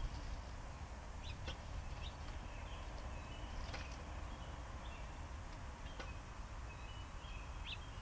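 Small birds chirping: short, high chirps and brief whistled notes every second or so, over a low steady background rumble, with a few sharp ticks.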